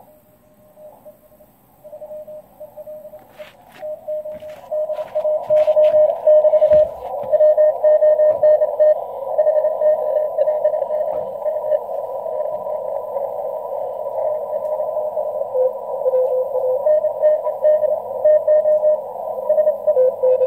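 Shortwave transceiver receiving Morse code (CW) on the 20-metre band through its narrow CW filter: on-off beeping over a hiss of band noise. After a few clicks, the hiss swells up about four seconds in as the magnetic loop antenna is peaked into resonance. A second, slightly lower-pitched Morse signal comes in near the end.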